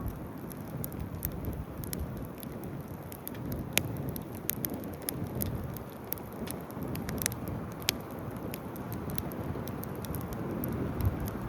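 Wood campfire crackling: frequent irregular sharp pops and snaps over a steady low rumble.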